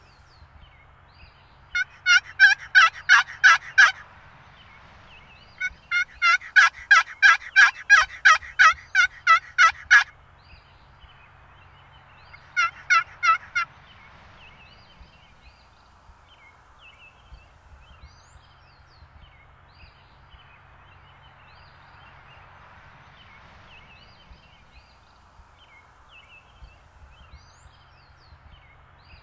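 Series of turkey yelps: three runs of quick, evenly spaced notes in the first half, the middle run the longest and a short run of four after it. Small birds chirp faintly throughout.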